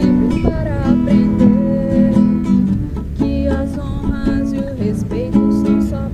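Acoustic guitar strummed in a choppy reggae rhythm, with a voice singing a gliding melody over it.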